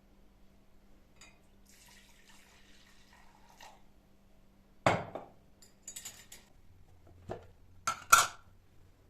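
Kitchen dishes and utensils being handled and set down: a heavy knock about halfway through, then clinks and knocks, with the sharpest clink near the end. A brief soft hiss comes a couple of seconds in, and a faint low hum runs underneath.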